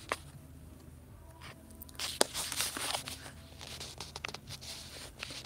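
Scattered light taps, clicks and rustling from hands handling the phone or camera and the cloth, with one sharp click a little after two seconds in.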